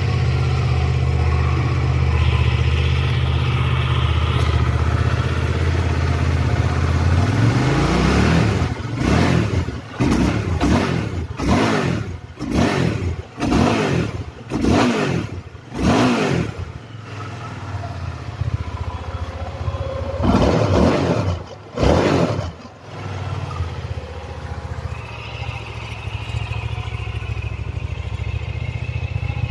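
Hyosung GT650R's 647 cc V-twin on its stock exhaust, idling steadily, then revved in a quick series of about eight throttle blips, then two more revs, then settling back to idle.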